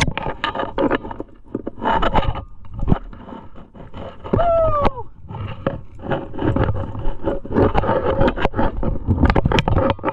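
Footsteps crunching and scuffing through dry fallen leaves and twigs on a steep descent, with brush and gear rustling, as an irregular run of crackles. About four and a half seconds in there is one short pitched call that falls in pitch.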